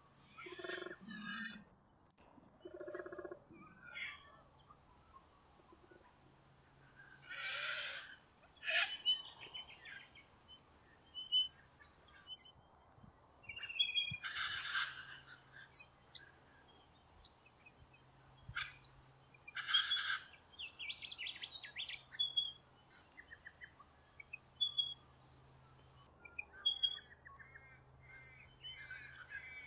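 Wild birds calling in eucalyptus bushland: harsh calls of about a second each, several seconds apart, and scattered short high chirps. In the first few seconds, the last low grunting notes of a male koala's bellow.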